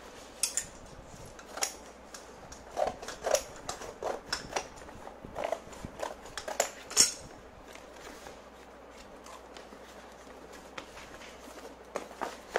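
Scissors cutting through corrugated cardboard: a run of sharp snips and crunches over the first seven seconds, the loudest about seven seconds in. After that it goes quieter, with a couple of clicks near the end as cardboard is handled.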